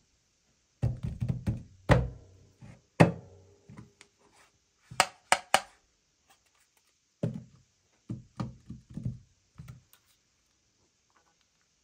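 Foldable phones and a handmade hinged mock-up being handled, opened and folded on a tabletop: a series of knocks and thunks. Three sharp clicks come about five seconds in, followed by a run of quicker knocks.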